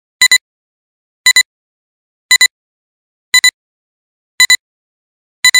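Countdown-leader beeps: a short, high double beep about once a second, six times, with silence between.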